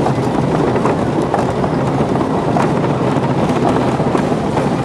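Cannon Ball wooden roller coaster train rolling through a curve, its wheels rumbling steadily on the track with scattered sharp clicks and knocks.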